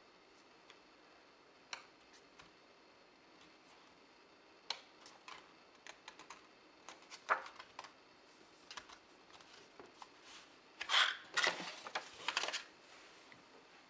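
Pages of a paper photobook being turned and handled: scattered light clicks and paper rustles, with a louder spell of paper rustling near the end as the booklet is moved.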